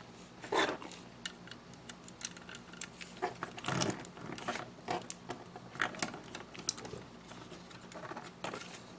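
Plastic parts of an HG Zowart Gunpla model kit clicking and rubbing together in the hands as the legs are pressed onto the body: scattered light clicks with a few short scraping rustles.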